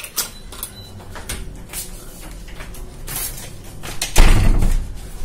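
A door being handled: scattered clicks and rattles, then a heavy thud about four seconds in.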